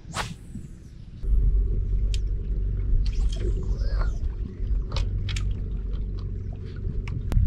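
A fishing rod cast swishes right at the start. About a second in, a steady low rumble sets in, with scattered light clicks over it.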